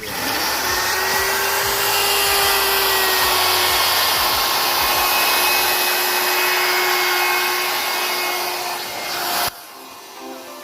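Electric wood router running at speed and cutting into board: a loud, steady high-speed motor whine over cutting noise, which cuts off suddenly near the end.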